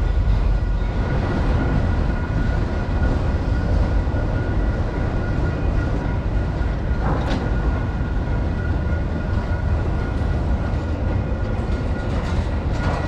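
Freight train cars rolling past: a steady rumble of steel wheels on the rails, with a couple of brief sharp clanks, one about halfway through and one near the end.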